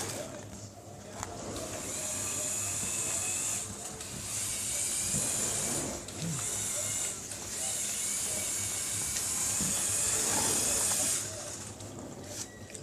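Small electric motors and plastic gears of a remote-controlled Lego Technic truck running with a whirring hiss in several separate stretches of one to four seconds, stopping and starting between them.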